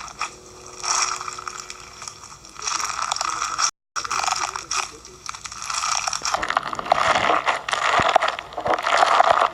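Fishbowl slime, a clear slime packed with small plastic beads, being squeezed and kneaded by hand. It gives a crunchy crackle of many small clicks in waves that grow denser and louder in the second half. The sound cuts out for a moment just under four seconds in.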